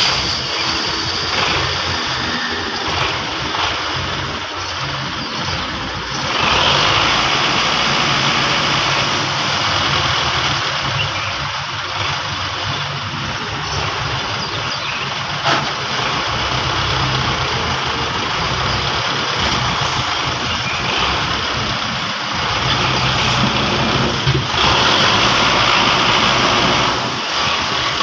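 Rusi 520 tractor's diesel engine running hard under heavy load while pulling a trailer stacked with steel bars. The engine gets louder about six seconds in, then keeps running steadily.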